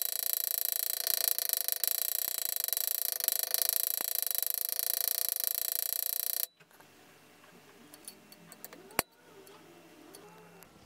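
A rapidly hammering punch tool buzzes against a copper strip laid on a steel anvil, texturing the copper. It cuts off suddenly about six and a half seconds in, and one sharp knock follows a couple of seconds later.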